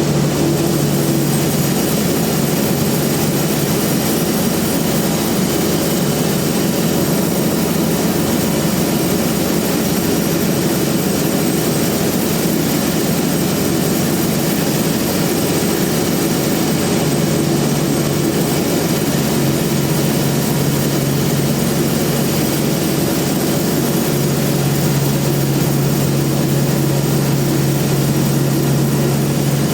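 Industrial bandsaw sawmill running steadily: a loud machine hum with a low drone over a wide noisy wash. The low tone weakens in the middle and comes back strongly near the end.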